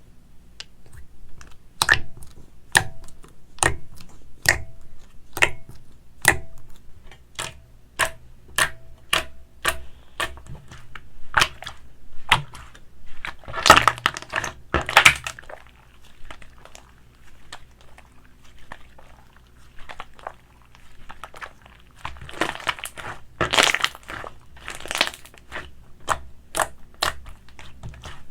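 Slime being squeezed and poked by hand, with a regular run of sharp pops for about the first twelve seconds, then longer crunchy, crackling squishes.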